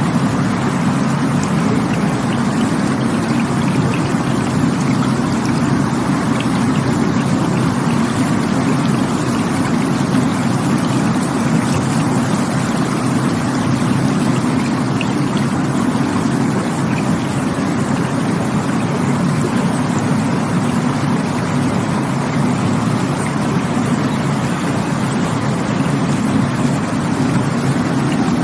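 Rushing stream water: a loud, steady, unbroken rush, heaviest in the deep range.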